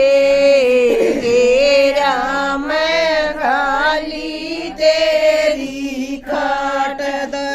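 Women singing a Haryanvi folk song, holding long, drawn-out notes with no clear words.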